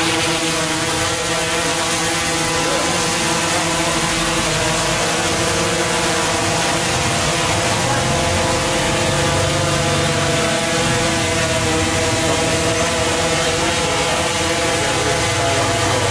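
DJI Inspire 1 Pro quadcopter hovering close by: its four electric motors and propellers give a steady high buzz of several pitched tones with a hiss of rotor wash, the pitch wavering slightly as it holds position.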